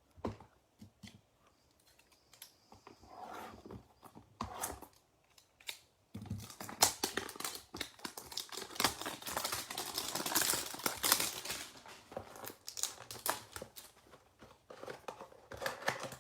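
A Donruss football-card hanger box being opened by hand: scattered light clicks and taps of the cardboard, then from about six seconds in a dense stretch of crinkling and tearing packaging as the packs are pulled out, thinning out after a few seconds.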